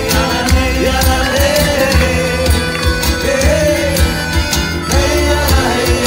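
Live acoustic folk band music: accordion melody over strummed acoustic guitar, with a cajón keeping a steady beat.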